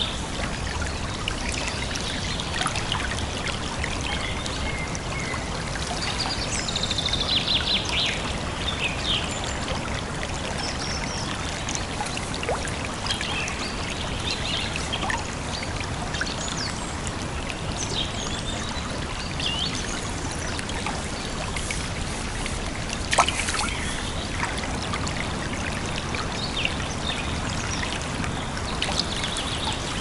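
Small forest stream running and trickling over snags close by, a steady rush of water. Small birds chirp now and then over it, with a rapid trill about seven seconds in. There is one sharp click a little past two-thirds of the way through.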